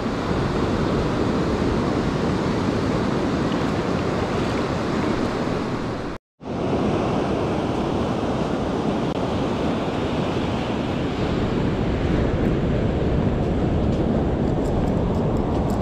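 Ocean surf washing on a beach, a steady rush of waves with wind buffeting the microphone; the sound drops out for a moment about six seconds in.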